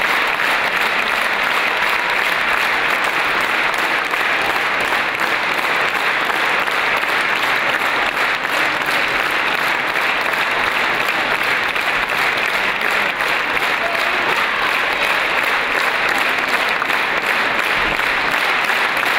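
Large audience applauding steadily, a dense, unbroken sound of many hands clapping.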